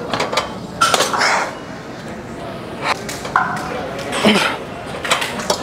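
Weight-stack leg machine clanking and clinking as its plates lift and drop through hard reps, with strained, forceful breathing between the knocks.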